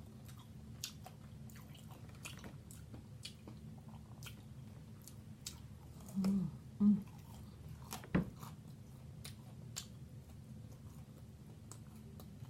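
Close-miked chewing of jumbo shrimp dipped in garlic butter sauce: wet mouth clicks and smacks throughout, with two short low vocal sounds from the throat about six seconds in and a single sharper knock a couple of seconds later.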